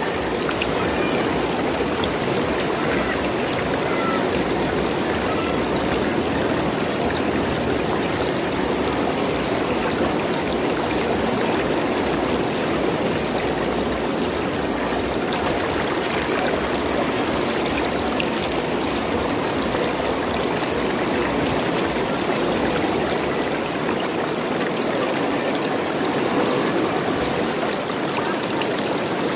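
Running water gurgling steadily.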